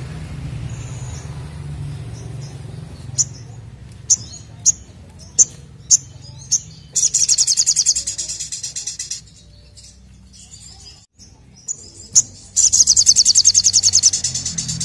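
Male olive-backed sunbird (sogokontong) singing in full 'nembak' style. A string of sharp, high single chips gives way to a fast, rattling high trill around the middle, and a second trill starts near the end.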